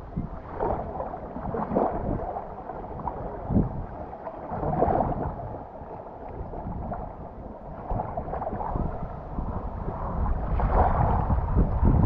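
Wind gusting on the microphone with a low rumble, over the wash of the sea at the shore.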